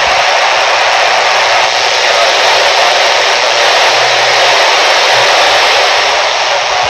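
Yaesu FT-60 handheld transceiver's speaker giving a loud, steady FM hiss: open-squelch static on the AO-85 satellite downlink, with no clear voice in it.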